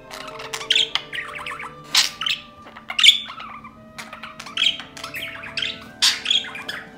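Budgerigar chirping and squawking in short, sharp calls, the loudest about two, three and six seconds in.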